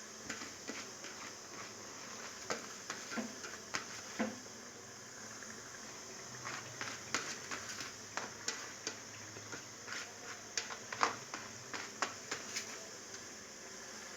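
Ground coconut sizzling as it goes a little at a time into hot coconut oil in a kadai, a steady hiss with frequent sharp pops and spits.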